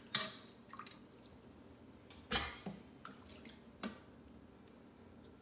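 Water splashing and dripping as raw chicken pieces are handled and dropped back into a large pot of water: several separate splashes, the loudest about two and a half seconds in.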